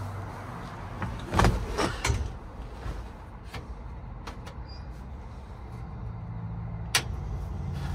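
Cab noises of a 1964 Chevy C10 before its cold start: a few heavy thumps of the cab and door, then lighter clicks as the red dash toggle switches are flipped, with a sharp click near the end. A steady low hum comes in near the end; the engine is not yet running.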